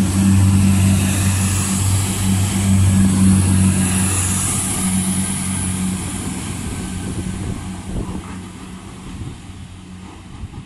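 Irish Rail 22000 Class InterCity Railcar, a diesel multiple unit, moving out along the platform: its diesel engines give a steady low hum with a faint high whine, then fade over the second half as the train draws away.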